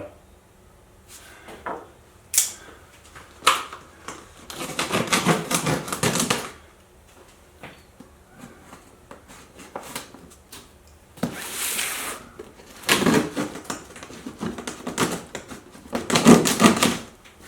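A taped cardboard shipping box being worked open. Scattered sharp clicks and knocks are broken by several scraping, rustling stretches of cardboard and packing tape, the longest about two seconds.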